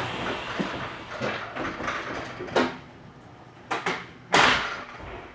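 Inside a 313-series electric train carriage: a low running rumble that fades, broken by scattered knocks and clatters. The loudest knock comes about four and a half seconds in.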